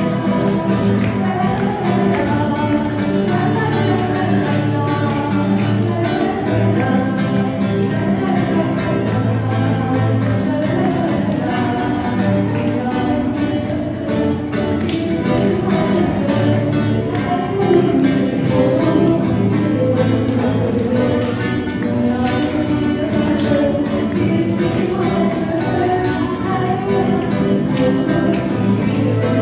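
Music playing steadily throughout: a song with instrumental accompaniment and a singing voice.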